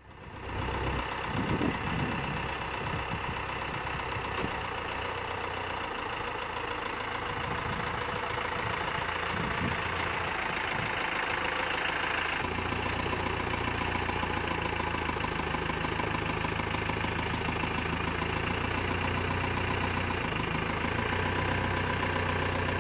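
Branson 7845c tractor's diesel engine idling steadily, a little fuller and heavier in the low end from about halfway through.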